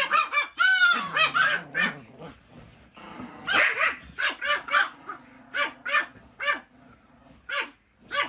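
Dog barking in quick runs of short, high-pitched yaps, with a break near the third second.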